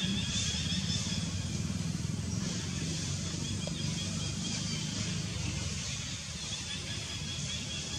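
Steady outdoor background noise: an even low rumble with a thin, wavering high-pitched whine above it, and no distinct calls.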